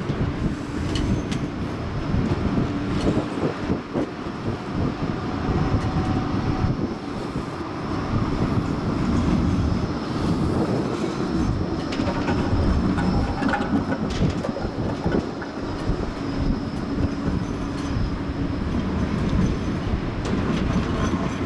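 Bombardier Flexity 2 tram running past close by on its rails, with wheels clicking over the track and a faint steady whine.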